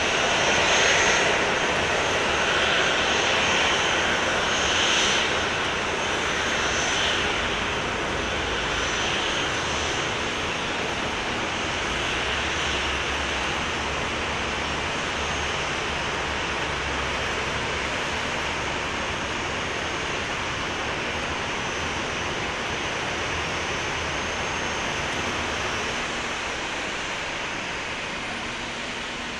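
Boeing 737-800's CFM56-7B turbofan engines running at low power as the airliner taxis past: a steady jet rush with a faint high whine, fading gradually.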